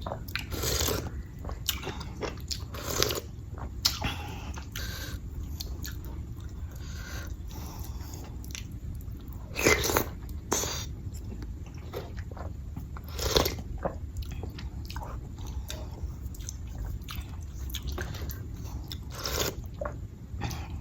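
A person chewing and eating close to the microphone, with soft mouth smacks throughout and several louder mouth noises spread across the stretch.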